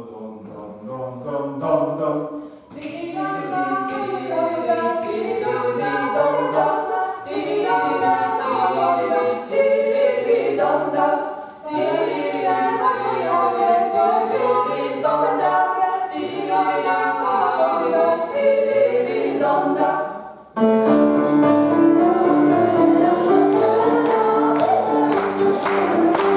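A small group of women singing together in harmony, unaccompanied. About twenty seconds in the singing breaks off and a piano starts up, with hand clapping joining near the end.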